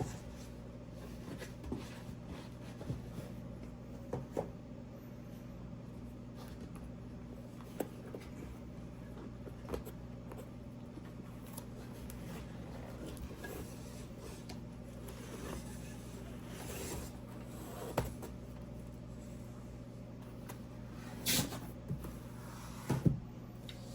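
Scattered light knocks, clicks and rustles of a boxed toy robot's foam and plastic packaging being handled, with a few louder knocks near the end, over a steady low hum.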